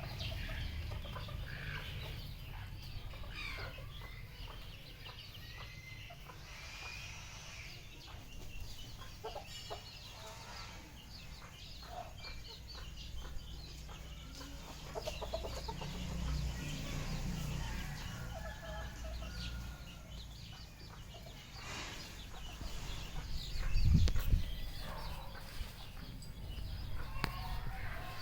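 Red junglefowl clucking and calling in short, scattered notes over a low rumble, with one loud low thump about three-quarters of the way through.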